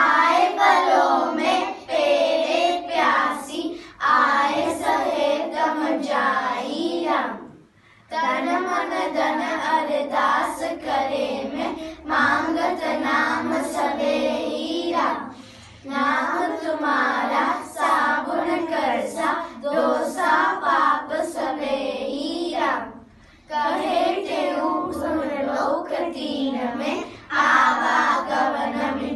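A group of children singing a devotional prayer together in unison, without accompaniment, in sung lines separated by short breaks about 8, 15 and 23 seconds in.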